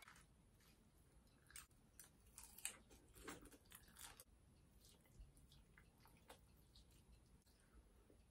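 Faint eating sounds of a person chewing a forkful of linguine: soft mouth clicks and smacks, most frequent in the first half, then sparse.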